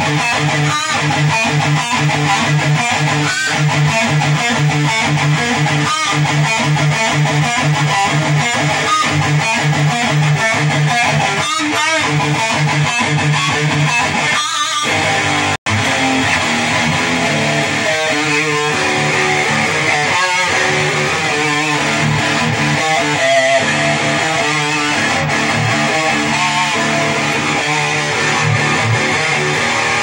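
Distorted electric guitar played through a Crate Flexwave 120 half stack on a metal setting: rapid repeated low notes for the first half, a momentary cut-out about halfway, then changing riffs.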